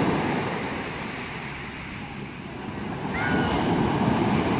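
Sea waves breaking and washing up a shingle beach: a steady rushing surf that eases about two seconds in and swells again as the next wave breaks. A faint brief voice calls out about three seconds in.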